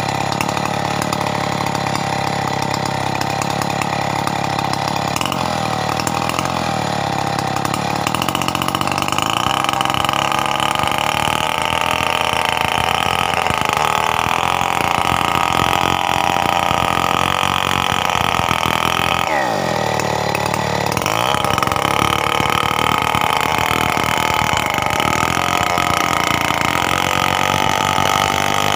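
Stihl 070 two-stroke chainsaw running hard and continuously, its engine pitch sagging and then climbing back about twenty seconds in.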